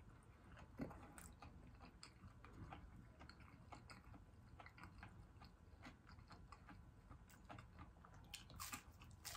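Faint close-up chewing of battered fried fish: soft crunches and small mouth clicks, a little louder near the end.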